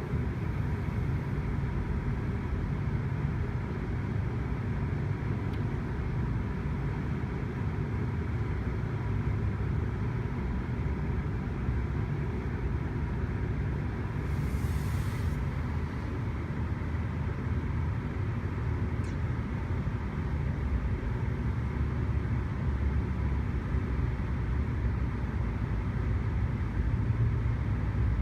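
Steady low rumble of a GO Transit commuter train's diesel locomotive running, with a faint steady tone over it and a short burst of hiss about halfway through.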